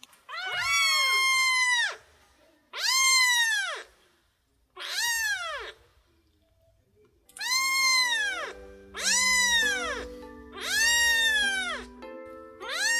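Ginger Exotic Shorthair kitten meowing over and over, about seven loud meows of roughly a second each that rise and fall in pitch: insistent begging for attention and play. Background music comes in about halfway through.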